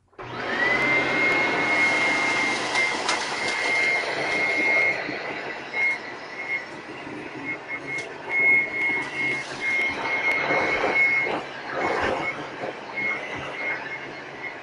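Eureka Precision upright vacuum switched on, its motor whine rising within half a second to a steady high tone, then running as it picks up aspen shavings. The shavings pass through its direct-air fan with scattered clicks and rattles, and in the second half the whine wavers and breaks up.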